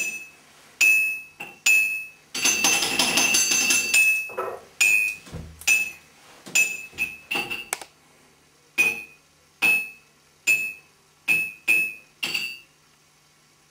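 A run of sharp, glassy struck notes, each ringing at the same high pitch and quickly dying away. They come in an irregular cluster at first, then as single strikes about a second apart that stop shortly before the end.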